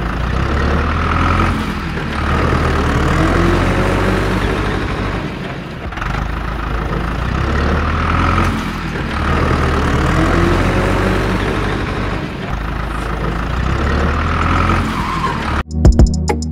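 Vehicle engine running, its sound swelling and easing about every three to four seconds.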